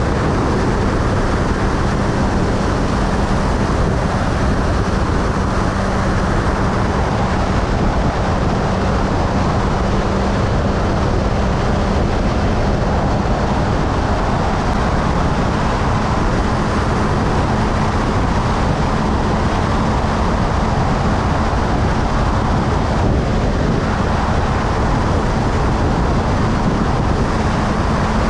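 Motorcycle cruising at steady highway speed: a steady engine note under a loud, even rush of wind and road noise.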